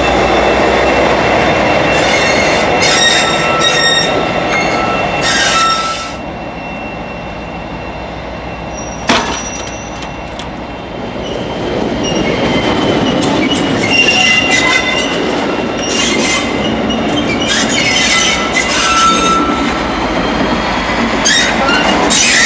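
Class 57 diesel locomotive (a rebuilt Class 47 with an EMD engine) moving slowly through a curve, engine running, with high-pitched wheel squeal that comes and goes. The sound falls away between about six and eleven seconds, with a single sharp clank about nine seconds in, then the engine and squeal return.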